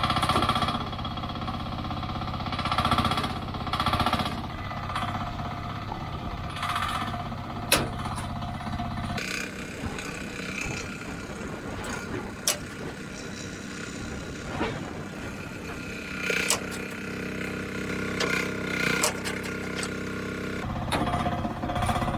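Mini excavator's small engine running with a rattly beat; its low note drops about nine seconds in and comes back near the end, as the hydraulic boom works the bucket down. A few sharp metal clanks sound as the bucket presses against the edge of a small truck's bed to push a dent back out.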